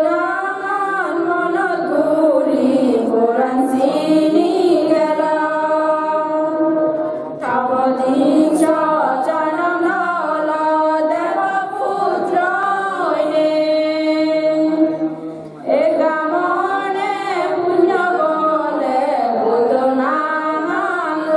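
Group of women chanting a devotional verse in unison, with long held notes, in three long phrases separated by brief pauses for breath.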